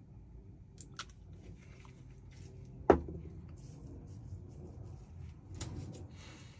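Handling noises at a work surface: a few light clicks and scrapes as small containers and a wooden stick are handled, with one sharp knock about three seconds in, the loudest sound.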